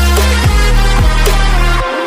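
Background electronic music in a dubstep style, with heavy sustained bass and a steady beat. It drops out briefly near the end.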